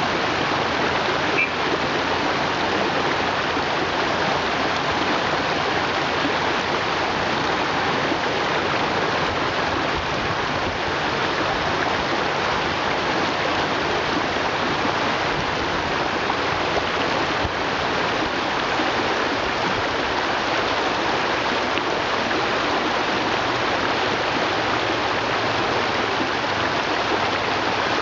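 Shallow rocky river rushing steadily over stones, a constant even water noise.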